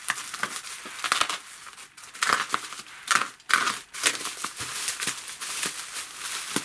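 Parcel packaging being handled and unwrapped: irregular crinkling and rustling with a few sharper crackles.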